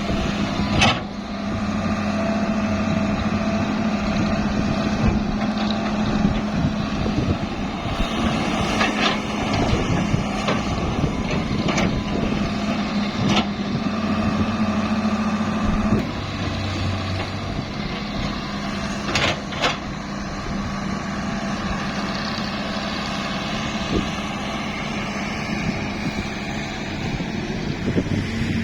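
Diesel engine of a mini excavator running steadily while loading a dump truck, with a few sharp knocks, such as the bucket striking, scattered through it.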